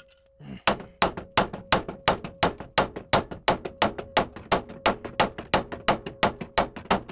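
Fast, steady run of hammer blows, about five a second, on the steel steering knuckle of a 1984 VW Rabbit, hitting it to shock the tie rod end's tapered stud loose. The joint has not let go yet.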